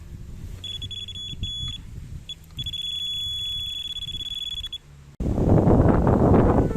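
Electronic carp/pike bite alarm sounding a single high tone, first in short broken beeps, then held continuously for about two seconds: a run, with line being pulled off the reel by a pike on the deadbait. It cuts off suddenly and loud wind rumble on the microphone takes over.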